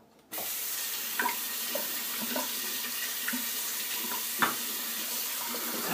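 A bathroom tap turned on just after the start and running steadily, with a few light knocks and clinks under the stream.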